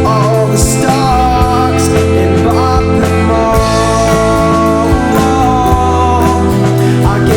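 Psychedelic rock music: an instrumental passage of sustained chords over a bass line, with a few gliding notes and cymbal strokes.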